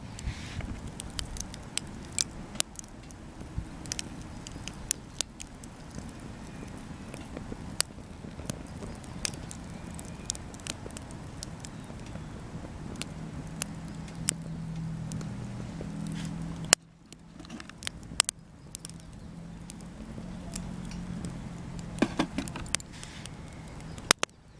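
Small wood fire crackling, with scattered sharp snaps and pops over a low steady hum. The sound drops away abruptly about two-thirds of the way through, then resumes.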